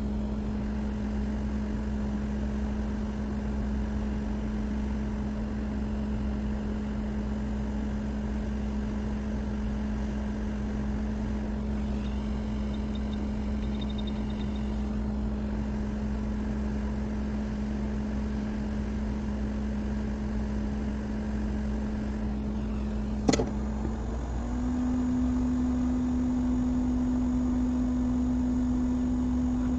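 A small blower motor from the repair bench runs with a steady hum. Faint high beeps come near the middle. About 23 seconds in there is a sharp click, and the hum then steps up a little in pitch and loudness.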